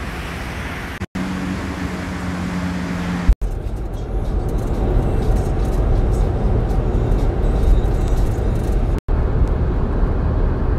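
Road and engine noise heard from inside a car moving on a highway, steady and concentrated low. It is broken by brief dropouts where the recording cuts, and near the start a short stretch carries a steady low hum.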